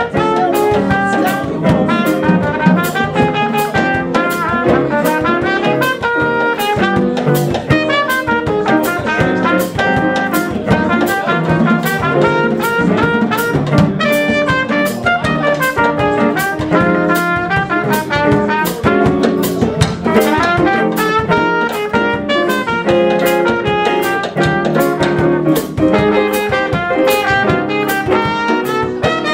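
A small jazz combo playing live: a trumpet out front over drum kit, electric guitar and keyboard, with the cymbals keeping a steady beat.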